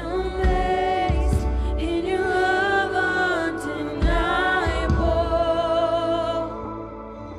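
A woman singing a worship song into a microphone, holding long notes over a steady instrumental backing.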